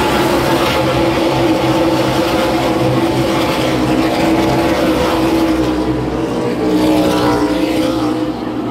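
NASCAR Cup stock cars' V8 engines running as the field circles the track, a steady engine drone that shifts slightly in pitch as cars pass.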